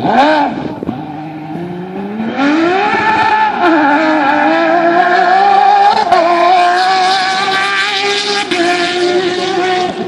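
Porsche 997 GT3 rally car's flat-six engine under hard acceleration: a quick blip of revs, then the pitch climbs steadily for about a second and a half. It drops once for an upshift about three and a half seconds in, then holds a high, loud, steady note at full throttle.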